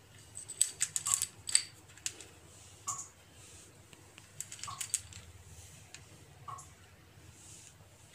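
Scattered light clicks and taps, some with a brief ring, as small sugar-coated chocolate buttons (gems) are handled and set one at a time on custard in a glass mug.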